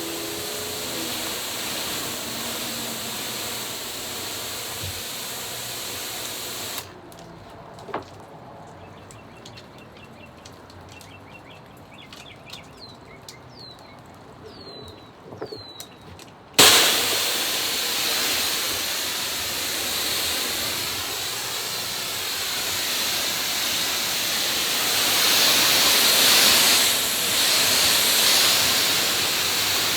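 Pressure washer spray hissing steadily as the house is rinsed from a distance. About seven seconds in the spray stops abruptly, leaving a quieter stretch with a few faint clicks and short chirps, then it starts again suddenly and runs loud to the end.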